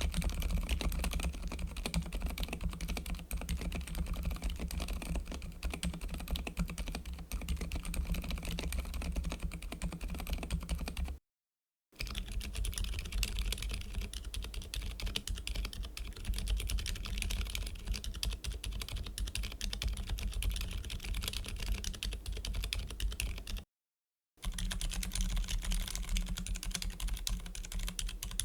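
Typing on a mechanical keyboard fitted with Cherry MX Honey silent tactile switches: a dense run of soft key clicks. It comes in three stretches, cut off briefly twice, about 11 seconds and 24 seconds in.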